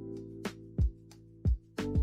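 Background music: sustained chords over a beat of low drum hits and sharp percussive clicks.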